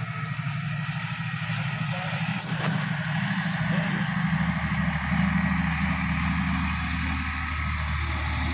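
Sonalika DI-50 RX tractor's diesel engine running steadily as it works the field pulling a tillage implement, growing a little louder a few seconds in.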